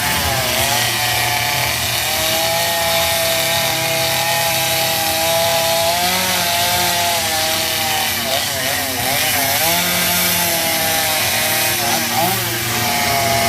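Chainsaw cutting into a wooden log. The engine note holds steady for stretches, then dips and rises as the throttle and the load on the cut change, wavering quickly about eight to nine seconds in and again near the end.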